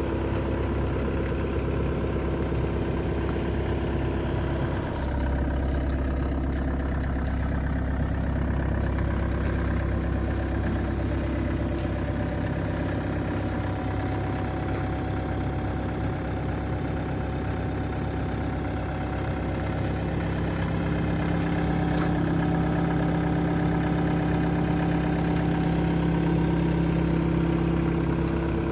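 Diesel engine of a John Deere 75G compact excavator running steadily, its low note stepping up about five seconds in and growing a little louder in the later part.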